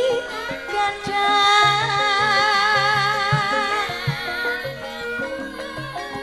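Javanese gamelan playing tayub music, with a female singer (sinden) holding long wavering notes over the ensemble and a regular beat of low drum strokes.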